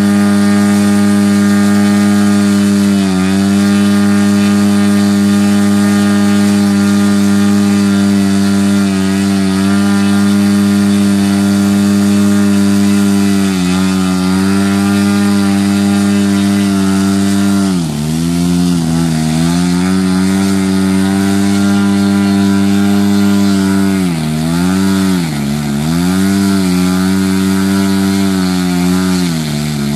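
Giant-scale radio-controlled model airplane's engine running at high throttle on the ground, propeller spinning. The engine holds a steady speed with brief dips a few times, then throttles back and picks up again several times near the end.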